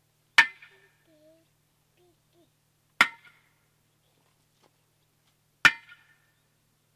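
Sledgehammer striking a metal ground-spike post three times, about two and a half seconds apart; each blow is a sharp metallic clang with a brief ringing tail.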